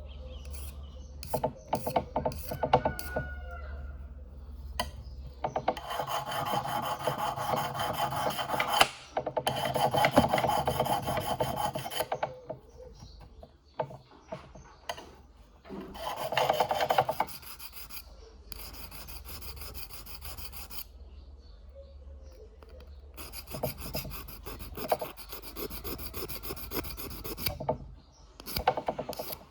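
Small abrasive sharpening stone rubbing on the prong of a pole-spear paralyzer tip, grinding its point to a wide angle. The rasping comes in several runs of a few seconds each, with scattered taps and clicks between them.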